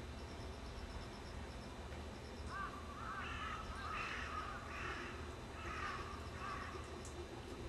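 A crow cawing, a series of calls starting a couple of seconds in at roughly one a second, over a steady low hum.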